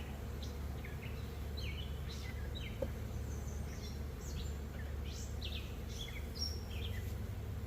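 Carniolan honey bees buzzing around an open hive, with small birds chirping in quick, short calls that sweep down in pitch, over a low steady rumble.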